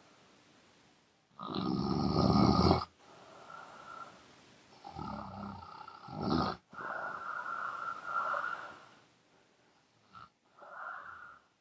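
A young woman snoring through an open mouth: one loud snore about a second and a half in, followed by several softer snores and breaths with short pauses between them.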